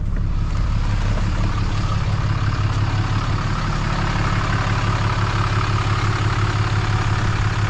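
Ram 2500 pickup engine idling steadily, a constant low hum.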